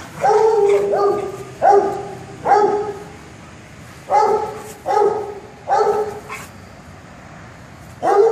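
A dog play-barking while wrestling with another dog: about seven high, ringing barks in uneven runs, with short pauses between the runs.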